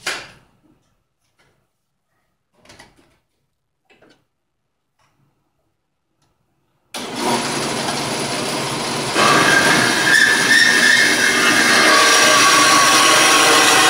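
Horizontal metal-cutting bandsaw starting up about seven seconds in with a sudden, loud, steady running noise, growing louder about two seconds later with a high whine as the blade cuts into the steel tube. Before it starts there are only a few faint clicks.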